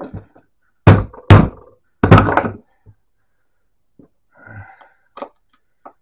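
A small sledgehammer striking the end of a screwdriver seated in a tight screw on an electric typewriter's metal frame: three sharp blows about a second in, the last ringing briefly. The shock is meant to break the screw free in its threads so it can be turned out. A few faint clicks follow near the end as the screwdriver is turned.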